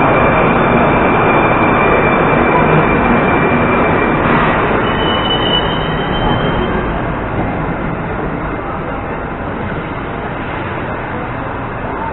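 Moscow metro 81-740/741 "Rusich" train pulling into the station and braking along the platform, with a steady high squeal that stops about four seconds in and a fainter whine just after. The running rumble fades as the train slows to a stop.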